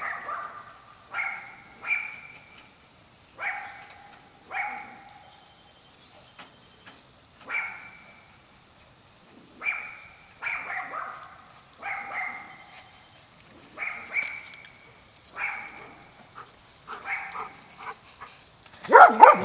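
A dog barking repeatedly: about fifteen short single barks at uneven gaps of a second or two.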